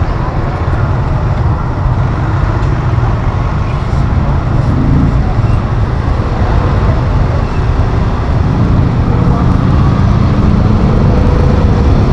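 Busy street ambience: a steady rumble of road traffic, with voices in the background.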